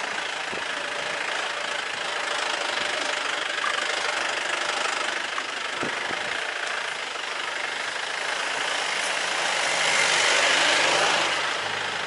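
Jeep driving along a rough dirt track, its engine running under a steady rush of road and wind noise heard from the open side window, with a few faint knocks from bumps; it swells a little near the end.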